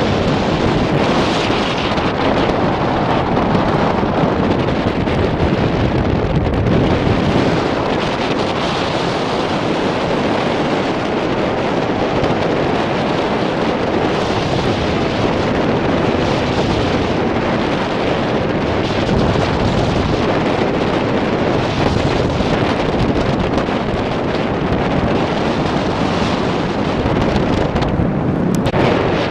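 Airflow from a paraglider flight buffeting the camera's microphone: a loud, steady rush of wind noise that swells and eases slightly.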